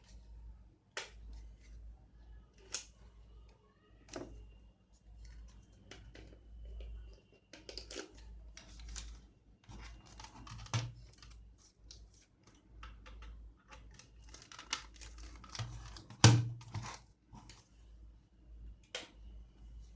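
Hands handling a router and its packaging: scattered clicks, taps and rustling, with one louder knock about sixteen seconds in.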